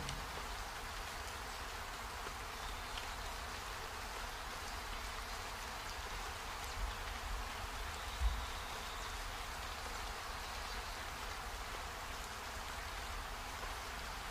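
Toasted mung beans in a plastic bag crackling and rustling as a jar is pressed and rolled over them to crush them, a steady rain-like hiss with two soft thumps about seven and eight seconds in.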